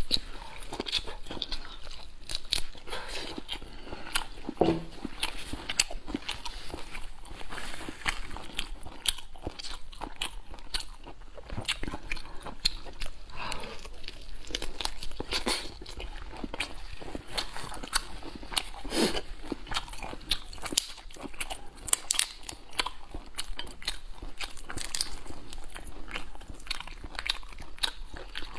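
A person biting and chewing boiled tiger prawn meat close to a clip-on microphone: a steady run of small mouth clicks and smacks.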